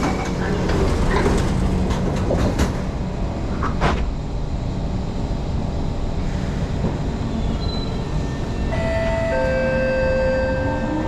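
Singapore MRT train running with a steady low rumble, several sharp wheel clicks over the rail joints early on, and a steady electric whine of several tones coming in near the end.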